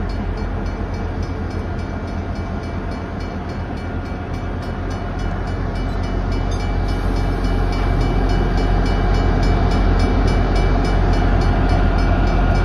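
Iowa Northern Railway diesel-electric locomotives running: a deep, steady engine rumble with a fast, even throb and a faint whine above it, growing somewhat louder in the second half.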